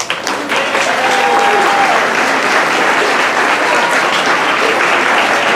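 Audience applauding steadily, starting right as the sixth graders are announced.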